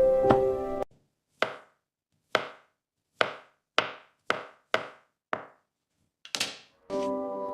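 Seven sharp chopping or knocking strikes at uneven intervals, each dying away quickly, followed by a brief swish near the end.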